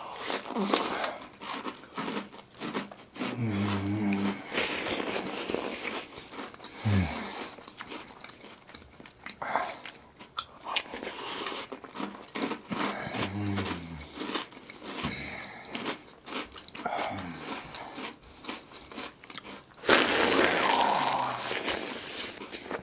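Close-miked eating of cereal in milk: crisp crunching of crispy cereal and wet chewing of soggy cereal, with hands working in the milky bowls. A few short hums come in between, and the loudest, densest stretch of crunching and mouth noise is near the end.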